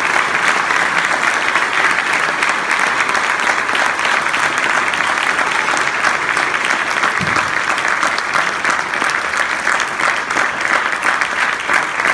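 An audience applauding steadily, a dense even clatter of many hands clapping.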